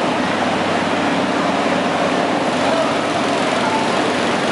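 Riding lawn mower engine running steadily, a constant loud mechanical noise.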